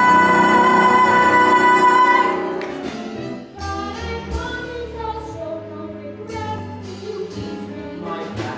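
A woman's solo singing voice holding one long, high note with vibrato over piano, ending about two seconds in. It then gives way to another piece of stage music: an instrumental accompaniment with shorter, moving notes and a low bass.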